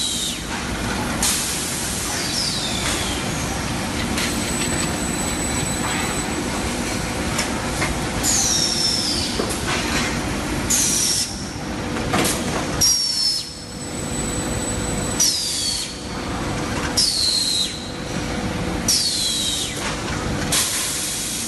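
Cold-drawing and straightening machine for metal bar running, a steady noisy clatter with repeated short high squeals that fall in pitch, coming every second or two in the second half. A steady hum comes in about halfway through.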